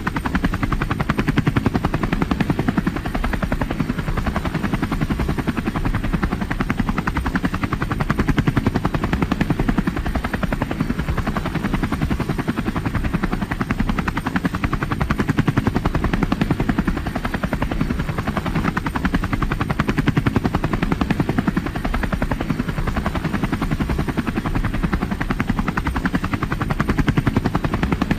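Helicopter flying, its rotor blades making a fast, steady chop over the engine's run, swelling and easing slightly in loudness every few seconds.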